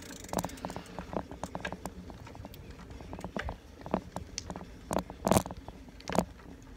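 A bicycle being ridden, with the phone filming from it: irregular rattling clicks and knocks, a few of them louder near the end.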